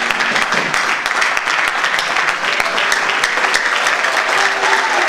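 Congregation of seminarians clapping their hands together, a dense continuous patter of many claps with no pause.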